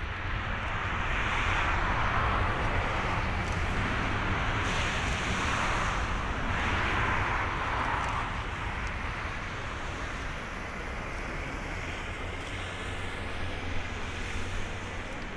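Airbus A350-900's Rolls-Royce Trent XWB jet engines at low taxi power: a steady hiss that swells over the first several seconds and then eases a little. Low wind rumble on the microphone runs beneath it.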